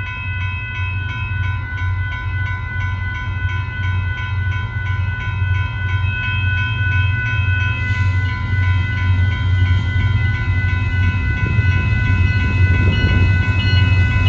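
Railroad crossing warning bell ringing steadily, about two strikes a second, as the gates are down for an approaching train. Under it the rumble of the oncoming Union Pacific diesel locomotives grows louder near the end.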